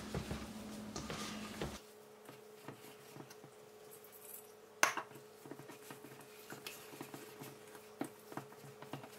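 Hands kneading and squishing mashed potato with grated cheese in a stainless steel bowl: faint soft rubbing and scraping with light ticks, and a single sharp knock about five seconds in.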